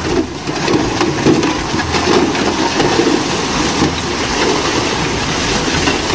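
Dump truck engine running while the raised bed tips out a load of rock and soil, the rocks tumbling and crashing down onto the heap.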